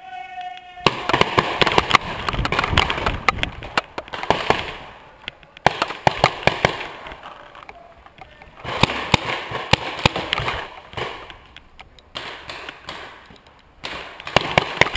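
Paintball markers firing in rapid, irregular volleys, sharp pops with paintballs smacking wooden bunkers, coming in waves with brief lulls. A short steady tone sounds at the very start, before the shooting begins.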